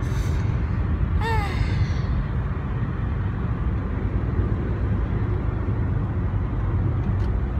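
Steady low rumble of a car's road and engine noise heard inside the cabin. A brief voice sound, a short hum or sigh, comes about a second in.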